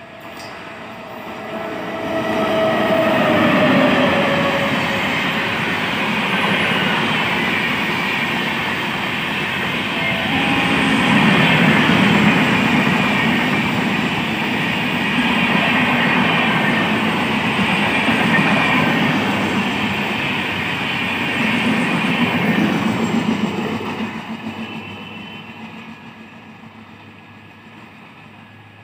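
Superfast express train passing at speed on the near track. Its coaches rumble and clatter over the rails, building up within about two seconds, staying loud for about twenty seconds, then fading away. In the first few seconds the tail of a horn falls in pitch.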